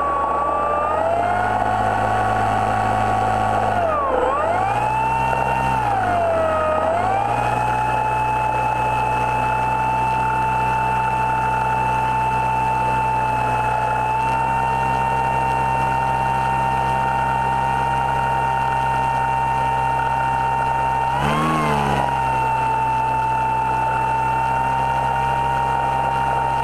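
Motor of a model Macchi M.33 flying boat, heard from a camera on its hull as it runs across the water. The pitch dips and recovers twice in the first seven seconds, then holds steady, with a brief blip about three-quarters of the way through.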